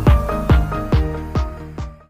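Electronic dance music with a steady kick drum about twice a second under held synth notes. It fades down in the second half and cuts off at the very end.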